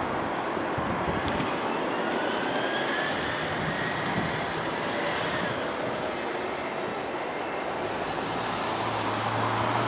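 Steady roar of traffic noise beside a toucan crossing, with no crossing beeps; a vehicle's low engine hum comes in about eight seconds in.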